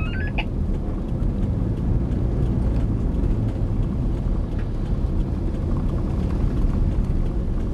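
Car driving, heard from inside the cabin: a steady low rumble of engine and road noise. A short rising tone sounds in the first half-second.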